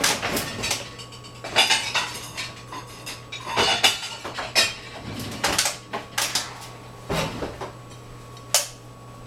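Dishes and utensils clattering: an irregular run of clinks and knocks as plates and cutlery are handled, ending with one sharp click near the end.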